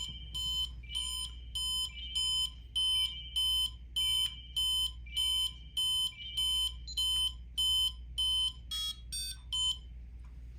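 Futaba 7PXR radio transmitter beeping during its link (binding) process, about two short electronic beeps a second. Near the end comes a quick run of beeps at different pitches, then the beeping stops as the transmitter and receiver link up.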